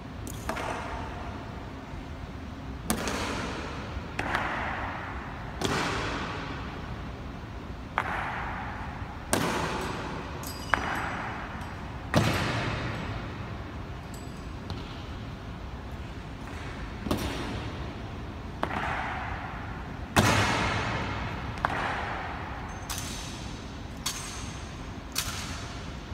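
Ceremonial honour guard stamping boots and working a rifle in drill on a stone floor: about fifteen sharp strikes, one every second or two, each with a long echo off the marble hall. A light metallic ringing follows a few of the strikes.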